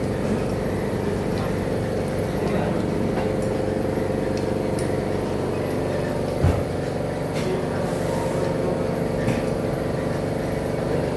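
Steady hum of running workshop machinery, with several steady tones, and a single short thump about six and a half seconds in.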